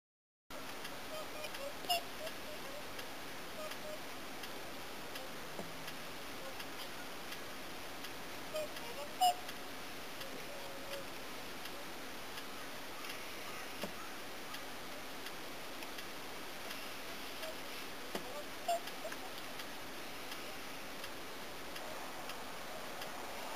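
Whooper swans in a grazing flock giving a few short, brief calls over a steady background hiss, the loudest about nine seconds in.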